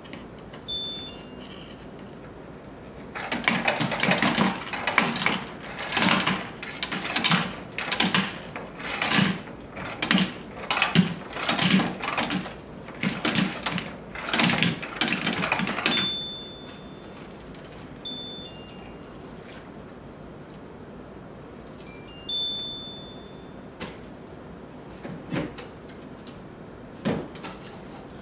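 Countertop water purifier pouring cold water into a cup, the flow coming in loud gushes about once a second for around 13 seconds. Short electronic beeps from its buttons sound before and after the pour, and a few small knocks follow near the end.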